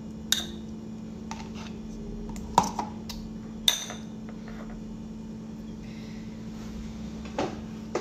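Metal spoon clinking against a glass bowl while spooning cream cheese, a handful of sharp clinks with the loudest about two and a half and nearly four seconds in. A steady low hum runs underneath.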